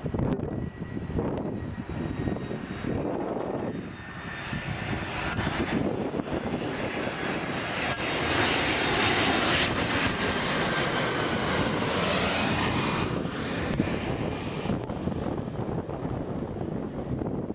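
Qantas Boeing 767-300 airliner passing low overhead on landing approach. The noise of its two turbofan engines builds as it nears and is loudest about halfway through, with a high whine that drops slightly in pitch as it passes and moves away.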